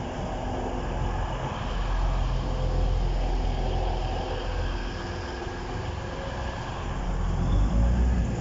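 A vehicle engine running with a steady low rumble, growing louder near the end.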